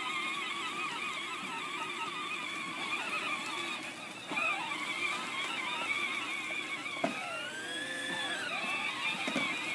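Background music with a wavering, vibrato-laden melody line, starting abruptly just before and carrying on steadily.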